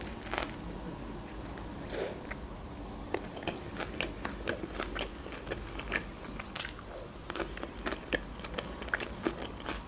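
Close-miked mouth sounds of a person biting into a fast-food burger and chewing it: a run of short, soft crunches and clicks that come more often after a few seconds.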